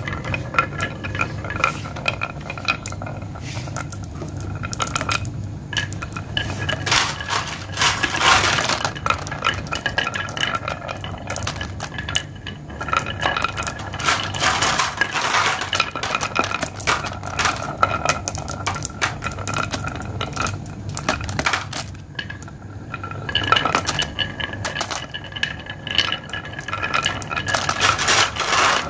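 Glass marbles rolling down a carved wooden track and dropping into the plastic bed of a toy truck, clicking and clinking against each other and the track in a dense, irregular patter with a bright ringing.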